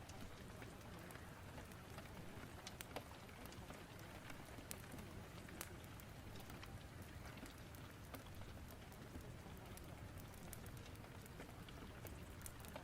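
Rain storm and fireplace ambience: a faint, steady hiss of rain with scattered sharp crackles.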